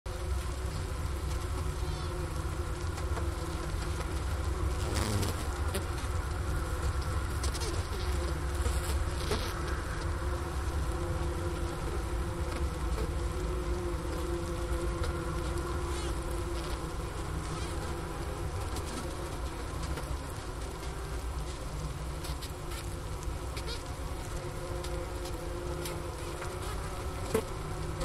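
Honeybee colony humming steadily inside a wintering hive, heard from within at the hole in the inner cover: the bees are clustered against the cold. A single sharp tick sounds near the end.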